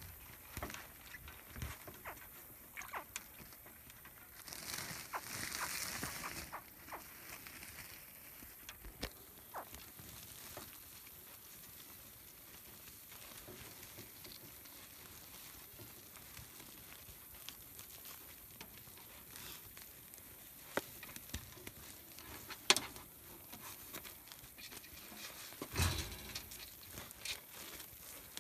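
Hands working the rope ties off a captured alligator's legs: scattered small clicks, rustles and rope scrapes, with a rustling swell about five seconds in. Near the end come a sharp knock and a louder thud.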